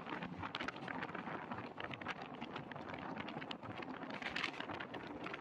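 Passenger train coach running at speed, heard from its open door: a steady rumble and rush of wheels on rail and wind on the microphone, with a constant rattle of clicks and knocks.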